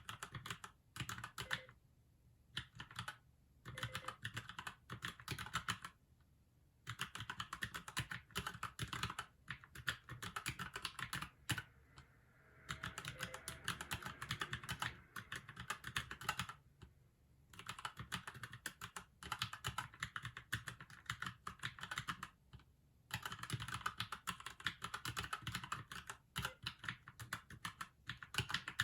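Fast typing on a Keychron mechanical keyboard: runs of rapid keystroke clicks broken by several short pauses.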